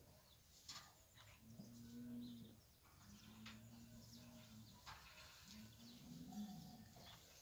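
Spanish fighting cattle lowing faintly, three long low calls in a row, with a few faint ticks between them.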